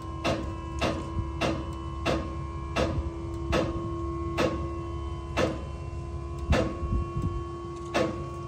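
Dump trailer's electric-hydraulic pump running with a steady whine as the bed lifts under a load of hardwood logs. Sharp clicks cut across it, about twice a second at first and slowing to around one a second.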